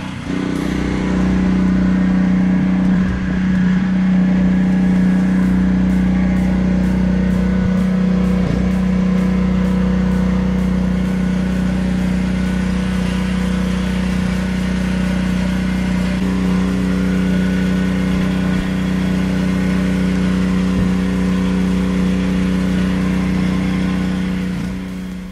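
A small motor running steadily, a constant hum at one pitch that cuts off near the end.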